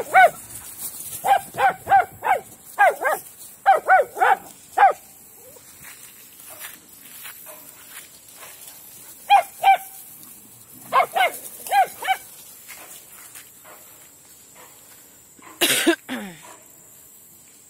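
Silken windhound barking: short, high barks in quick runs of two to five, with pauses between the runs. About sixteen seconds in, a single loud, sudden sound with a falling tail stands out.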